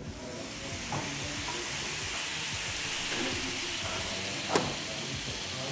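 Köfte meatballs sizzling on a metal tray over a charcoal grill: a steady hiss. A sharp click sounds about four and a half seconds in.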